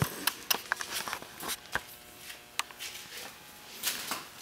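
Irregular sharp clicks and light knocks, about a dozen, from handling the camera and moving about on foot.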